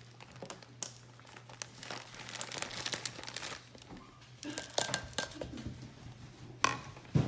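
Plastic bag of brown sugar crinkling and rustling as it is handled and a measuring cup is scooped into it, with scattered crackly ticks. Near the end come two sharp knocks as the measuring cup is emptied over the glass mixing bowl.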